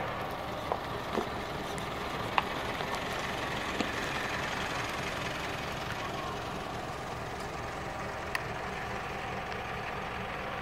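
Diesel engine idling steadily, with a few short sharp clicks scattered through.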